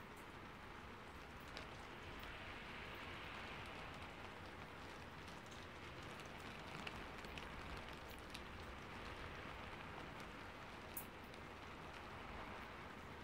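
Rain falling steadily, a soft even patter with a few sharper drop ticks.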